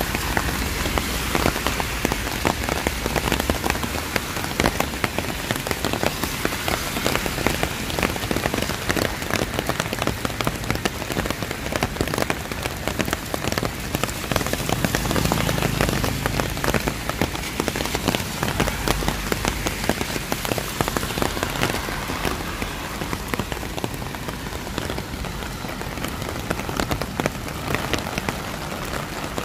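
Steady rain falling on surfaces: a dense hiss full of sharp, close drop hits. A low rumble swells briefly about halfway through.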